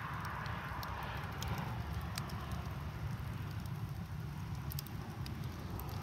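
Campfire burning shoes and a shoe rack: a steady low rumble of flames with many scattered sharp crackles and pops, and a hiss that dies down after the first second or so.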